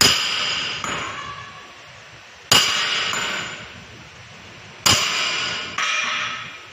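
Sledgehammer striking the steel eye of a truck torque rod V-arm three times, about two and a half seconds apart; each blow clangs and rings, then fades. The hammering is to drive the old bushing out of the V-arm.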